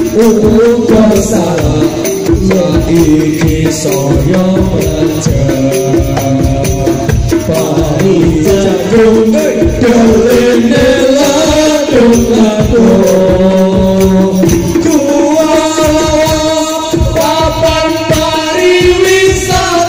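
Background music: a melody over a steady percussion beat.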